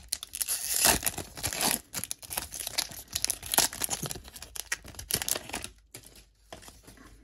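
Foil wrapper of a Panini Mosaic basketball card pack being torn open and crinkled by hand: a dense, irregular run of crackles that dies down near the end.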